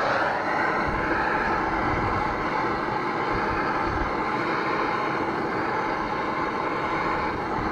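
Handheld gas torch burning with a steady hiss, heating battery terminal ends coated in soldering paste to clean off the corrosion before soldering.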